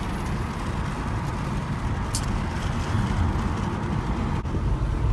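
Steady road and engine noise inside a moving car's cabin, a low rumble with no other event standing out.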